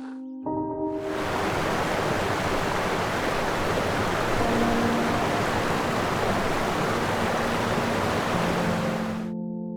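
A steady rushing hiss that begins about half a second in and fades out near the end, with faint background music tones underneath.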